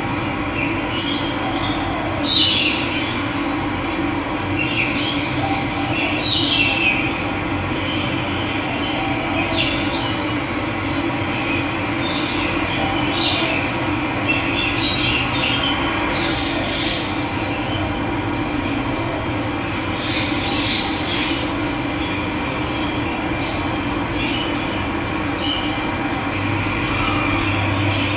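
Running water rushing steadily, with short bird chirps over it, the loudest about two and six seconds in.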